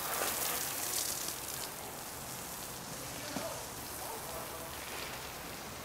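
Garden hose spray nozzle hissing as a jet of water sprays out. It is loudest for about the first second and a half, then drops to a fainter, steady hiss.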